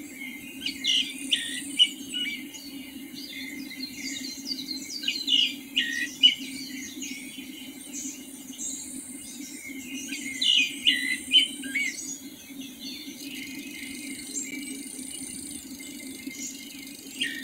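A songbird singing in three bouts of quick, high, chirping phrases with short down-slurred notes, a few seconds apart, over a steady low hum.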